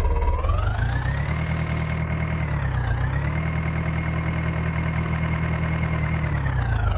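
Diesel engine revving up and holding high revs, with a brief dip about three seconds in, then dropping back down near the end.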